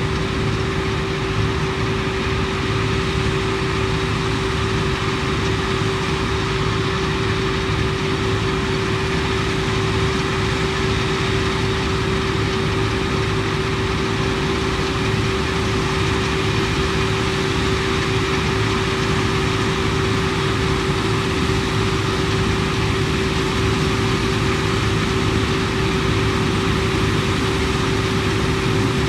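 Claas Lexion 480 combine harvester running steadily while harvesting wheat: a constant machine drone with one steady whine over it.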